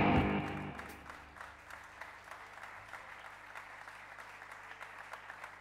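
A rock trio's last chord fades out within the first second, then the audience applauds.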